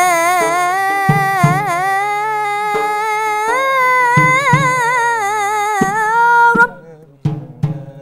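A boy's high voice chants a devotional Arabic ibtihal, holding one long, ornamented, wavering melisma. Low notes sound beneath it now and then. The voice breaks off suddenly about six and a half seconds in, and a few short soft sounds follow.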